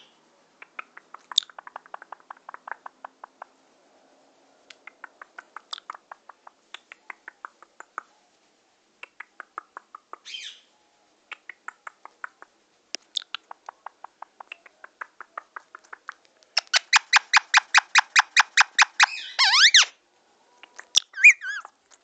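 Blue Indian ringneck parakeet chattering in courtship display. Bouts of soft rapid clicking build to a louder, fast rattling chatter of about eight pulses a second, which ends in short bending whistles, with a brief squawk near the end.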